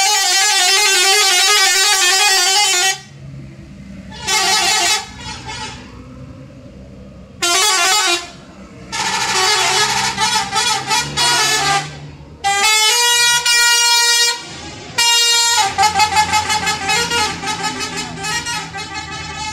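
Bus telolet horns, multi-tone musical horns, playing repeated bursts of a warbling, stepping tune, one held chord past the middle and a run of fast stuttering toots near the end. A bus engine runs low beneath and between the bursts.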